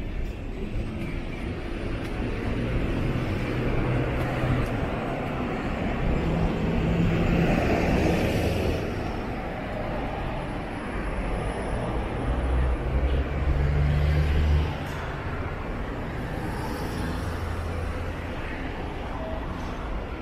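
Road traffic on a city street: cars passing, the loudest about eight seconds in, and a low engine rumble that stops suddenly about fifteen seconds in.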